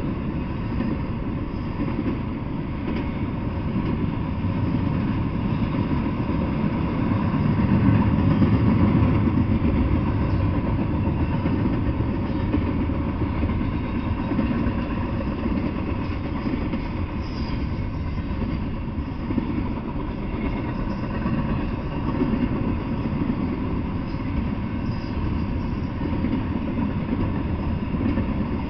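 Double-stack intermodal freight train rolling past: a steady rumble of wheels on rail that swells briefly about eight seconds in.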